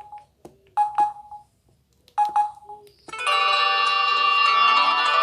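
Samsung Gravity 2 (SGH-T469) phone: a few short beeps with clicks, like key presses, then about three seconds in a many-note ringtone starts playing through the phone's speaker.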